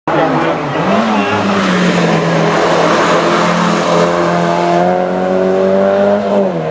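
Rally car engine at high revs, accelerating hard. The pitch dips briefly about a second in at a gear change, then climbs steadily and falls away near the end.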